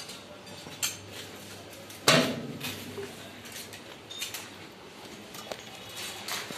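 Scattered metal clanks and knocks from steel being handled in a fabrication workshop, the loudest about two seconds in with a short ring after it.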